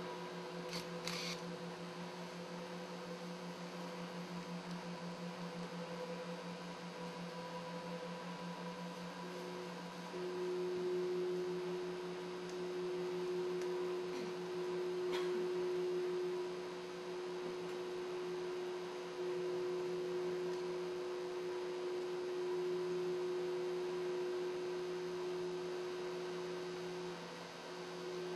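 Steady droning hum of several held tones, with a clear low note that swells in about ten seconds in and holds.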